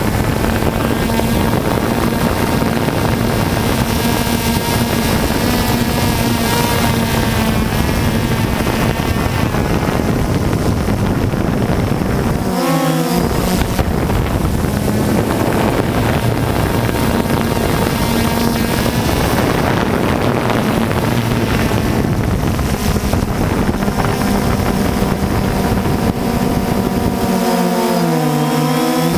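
DJI Phantom II quadcopter's motors and propellers running in flight, a steady hum and whine with wind rushing over the camera. The pitch shifts briefly about halfway through and again near the end as the motors change speed.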